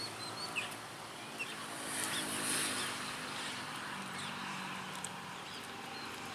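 Faint rural outdoor ambience: a steady low hiss with a soft swell of noise about two to three seconds in, and a few faint bird chirps near the start.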